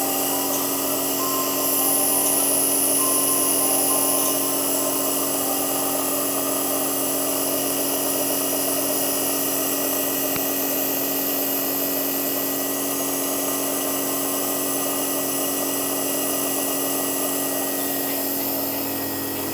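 A small electric motor running with a steady hum and whir, unchanging throughout.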